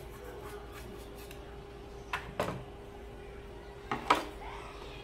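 Small paintbrush rubbing over a lamp's LED circuit board, then two pairs of knocks as tools and the lamp are handled and put down on a wooden workbench; the knock about four seconds in is the loudest.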